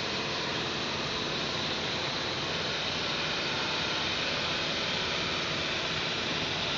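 Steady, even hiss of city background noise on a rooftop webcam microphone, with no bird calls.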